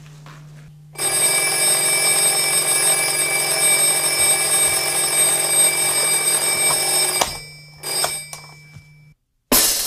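A bell ringing loudly for about six seconds, then cutting off, with a short second ring a moment later. Just before the end, the band's drums and music start.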